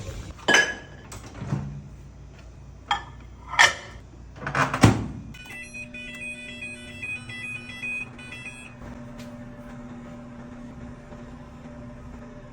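Microwave oven door and controls handled with several knocks and clicks, then a run of high electronic beeps and the oven running with a steady low hum.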